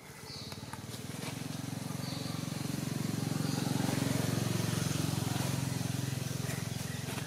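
A motor vehicle's engine passing by: a low hum that swells to a peak about four seconds in and then fades.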